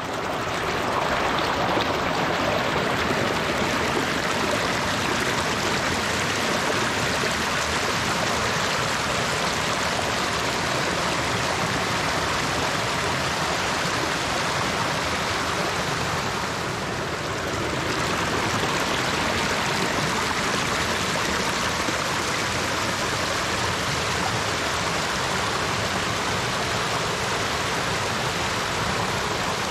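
Rocky brook running steadily over stones and small falls, a constant rush of water that softens briefly about two-thirds of the way through.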